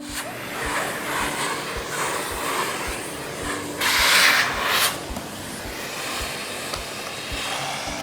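Miele Blizzard CX1 bagless canister vacuum running, its suction making a steady rushing hiss that swells louder for about a second midway.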